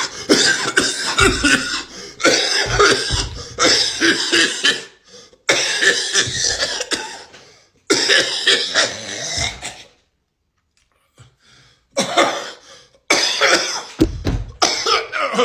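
Bouts of coughing, one after another, each a quick run of several coughs, with a pause of about two seconds some ten seconds in.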